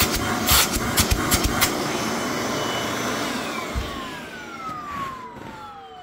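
Bagless canister vacuum cleaner running on a test run after its filter was cleaned and refitted, with a few sharp knocks in the first two seconds. About three seconds in it is switched off and the motor winds down, its whine falling in pitch as the sound fades.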